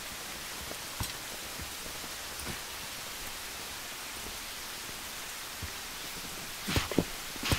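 Steady rain falling, with a few sharp knocks near the end.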